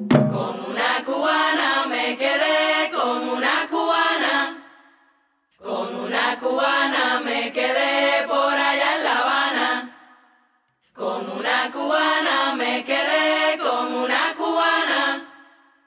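Plena song sung a cappella: voices chanting in three phrases of about four and a half seconds each, with about a second of silence between them. The drums cut out right at the start.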